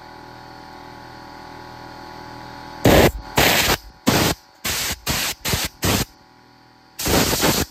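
Compressed-air blow gun on a coiled air hose, blowing short blasts through a brass mechanical fuel injection nozzle to clear it out after ultrasonic cleaning. There are about eight sharp blasts of air, starting about three seconds in, with the last one near the end. Before the first blast there is a steady hum with several tones.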